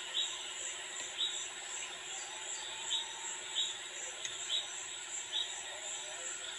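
An insect chirping, short high chirps repeating roughly once a second, over a steady hiss and low hum; a faint click about four seconds in.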